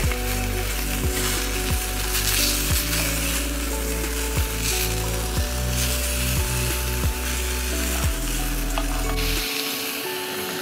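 Sausages sizzling and frying in a pan on a Soto Windmaster gas canister stove, stirred now and then, with a steady sizzle throughout. Music with low sustained notes and a regular beat plays underneath and drops out near the end.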